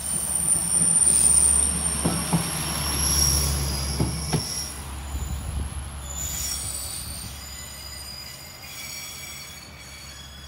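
An Amagi Railway AR400 diesel railcar rolls past at low speed and moves away, its engine a low hum under a high-pitched squeal from the wheels. Two quick double clacks, about two seconds apart, come from its wheels crossing a rail joint, and the sound fades as the car pulls away.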